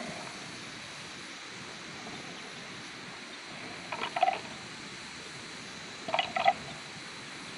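Two young water buffalo fighting head to head: two brief clusters of sharp knocks from their clashing horns, one about four seconds in and another just after six seconds, over a steady outdoor hiss.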